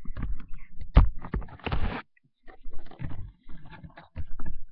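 Handling noise close to a webcam microphone: a run of irregular knocks and low thuds, the loudest about a second in, with a short rustle just before two seconds and more knocks after a brief pause.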